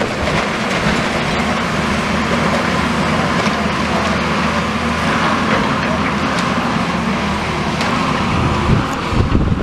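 Diesel engine of a long-reach demolition excavator running steadily under load as its hydraulic arm works, with a few faint clatters of debris. Wind buffets the microphone near the end.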